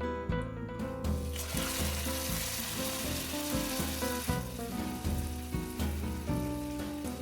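Hot caramel sizzling hard in a saucepan, starting about a second in and dying down after about three seconds, with background music playing throughout.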